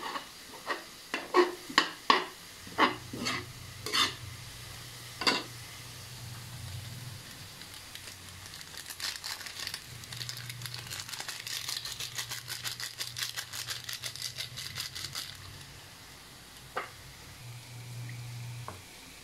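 A metal spatula scraping and knocking against a wok as ground meat and onions are stir-fried, about ten strokes in the first five seconds over a faint sizzle. From about eight seconds in comes a rapid, dense patter as a seasoning sachet is shaken out over the meat, then a couple of light clinks near the end.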